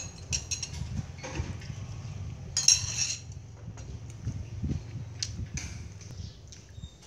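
Crockery and cutlery clinking and knocking as a plate of rice with a spoon and chopsticks is set down on a slatted wooden table, with one louder clatter about three seconds in.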